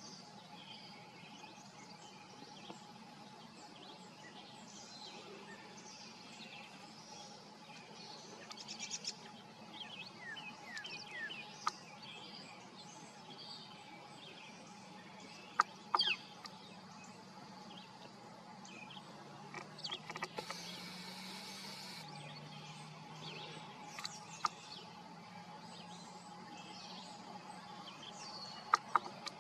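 Birds chirping now and then over a steady hum, with a few sharp clicks and a brief hiss about two-thirds of the way through.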